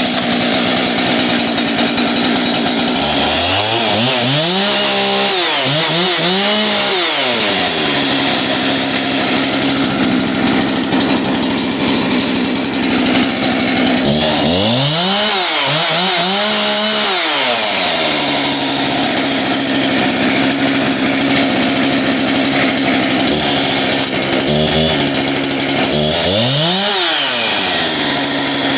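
Husqvarna 372XP 71 cc two-stroke chainsaw running: a steady idle, revved up to full speed and back down five times, twice early, twice around the middle and once near the end. It revs out pretty good, the engine sounding healthy.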